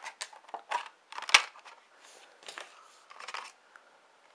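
Clear plastic clamshell packaging being pried open and handled: a run of plastic clicks and crackles, the loudest a sharp snap about one and a half seconds in.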